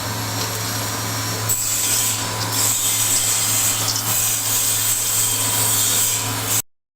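Wood pellet mill running, an electric motor humming steadily under a harsh grinding and rubbing noise. The noise grows louder and harsher about a second and a half in, then cuts off suddenly near the end.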